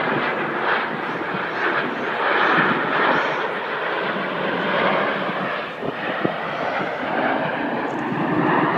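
Jet engines of the Red Arrows' BAE Hawk T1s flying by: a loud, steady rushing jet noise that swells and eases slightly.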